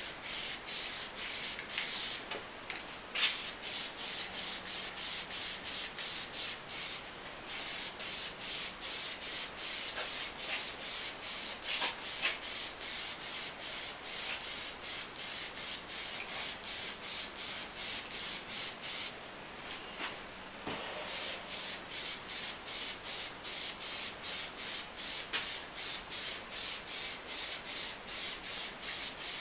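Aerosol can of Plasti Dip spraying in quick, even pulses of hiss, about three a second, pausing briefly a few times.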